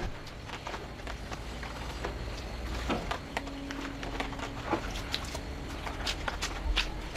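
Irregular light clicks and knocks over a low steady hum, with a brief steady tone in the middle.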